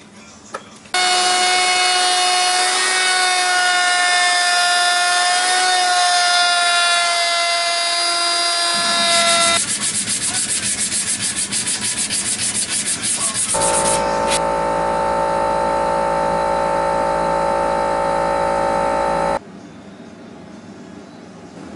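A woodworking shop with three sounds in turn. First a steady machine whine runs for most of nine seconds. It is followed by fast, regular scratching strokes of sandpaper being rubbed by hand on a wooden part, and then a lower steady machine whine, which stops abruptly near the end.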